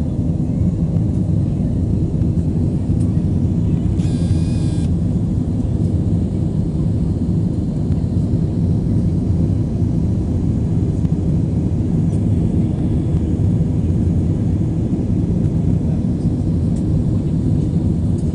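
Steady low roar of an airliner's cabin during the climb after takeoff: engine and airflow noise heard from inside the cabin. A brief high-pitched sound with several tones cuts in about four seconds in.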